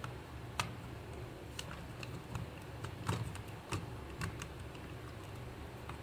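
Irregular light clicks and taps, roughly one a second, the loudest about three seconds in, over a low steady hum: small hard parts and tools being handled at a workbench.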